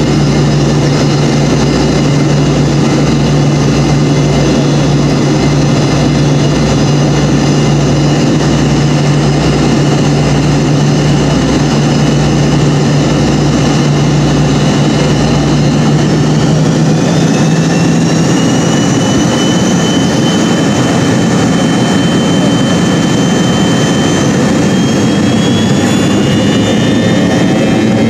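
Cabin noise of a McDonnell Douglas MD-88 heard from a rear window seat near its tail-mounted Pratt & Whitney JT8D turbofans: a loud, steady engine drone with a low hum and a rhythmic low pulsing. About two-thirds of the way through, the pulsing stops and a high whine rises in pitch, levels off and rises again near the end as the engines come up to takeoff power.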